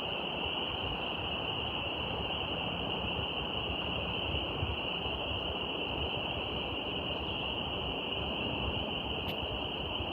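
Steady outdoor nature ambience: a continuous high-pitched drone over an even rushing noise, unchanging throughout.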